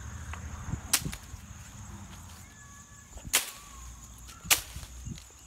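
A stick striking a tree trunk: three sharp cracks, about a second in, just past three seconds and at about four and a half seconds.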